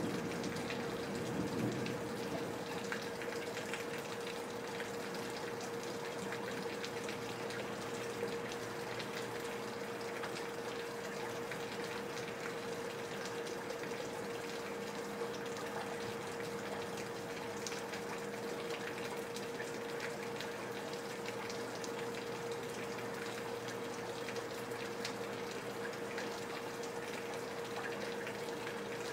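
Steady rain falling, with a constant low hum underneath; slightly louder in the first couple of seconds.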